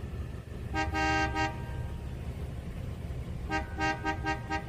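Car horn honked in short bursts: a quick cluster of three or four toots about a second in, then a rapid string of short taps near the end. A low steady rumble runs underneath.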